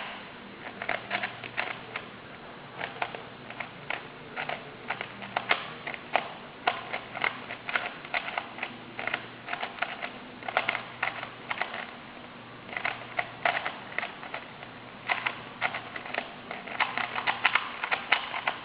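Rubik's Cube being turned quickly by hand, its plastic layers clicking in fast runs of turns with short pauses between them, as the solver carries out the blindfolded solve.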